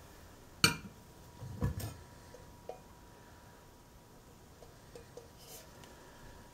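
Metal parts of a stainless-steel percolator being handled and set down: one sharp clink less than a second in, a short clatter of knocks a second later, then a few faint taps.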